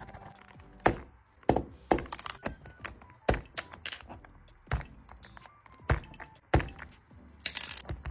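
Plastic keycaps being pressed onto a mechanical keyboard's switches: a string of sharp, irregular clicks, about one to two a second.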